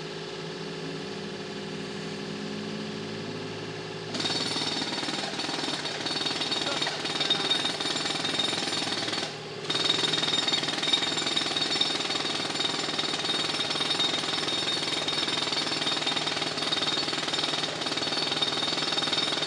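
An engine runs steadily, then about four seconds in a jackhammer starts up, breaking into the concrete of a lockdown barrel. It stops for a moment about halfway through and resumes.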